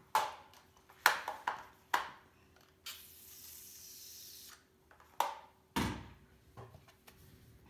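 Handling noises of a bottle of alcohol and small gun parts: a run of sharp clicks and knocks, a steady hiss lasting under two seconds about three seconds in, then two knocks as things are set down.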